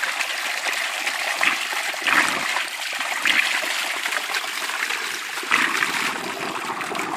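Water gushing and splashing out of a hydraulic ram pump's waste check valve, which is held open with a stick to bleed trapped air out of the drive pipe. The flow surges now and then.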